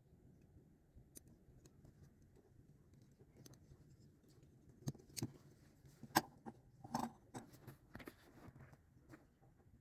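Diecast model packaging being handled: a string of small clicks, taps and crinkles, busiest and loudest from about halfway through until near the end.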